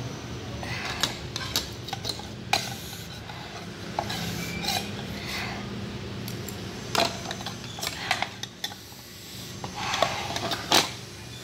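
Metal fork and spoon scraping and clinking against a bowl, a scatter of sharp scrapes and clicks as the last of the food is scooped out.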